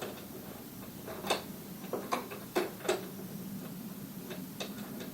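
Light clicks and knocks of metal parts and tools being handled while a moped's front end is put back together: about five sharp taps in the first three seconds, then a few fainter ticks.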